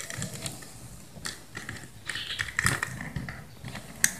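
Small scattered clicks and taps of hands handling a copper wire and a plastic socket board while fitting the wire end onto a socket's terminal screw, with the sharpest click near the end.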